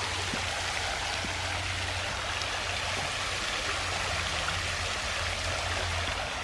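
Water steadily splashing and rushing from an ornamental waterfall into a pool.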